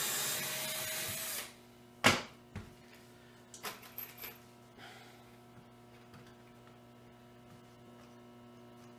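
Cordless drill driving a screw into the pine table frame for about a second and a half, then stopping. About two seconds in there is a sharp knock, followed by a few lighter clicks. A steady electrical hum from the oven runs underneath throughout.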